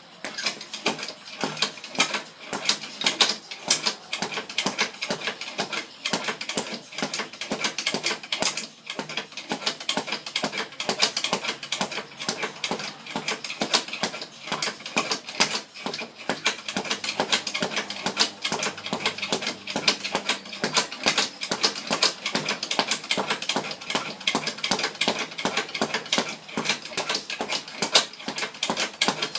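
Leather speed bag being punched in a fast, steady rhythm, a rapid unbroken run of sharp thuds as the bag rebounds, starting suddenly.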